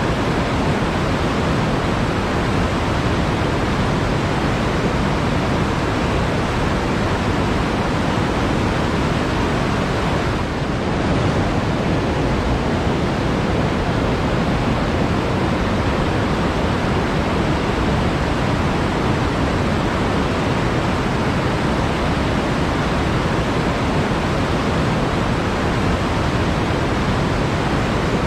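Flowing water in a forest, a steady, even rush, with a brief slight dip about ten seconds in.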